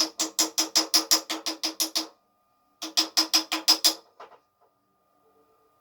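Rapid, even tapping on a jammed metal part of an LPG gas stove to knock it loose, about six ringing strikes a second. There are two runs, with a short pause between them. The part is stuck tight with sticky grime.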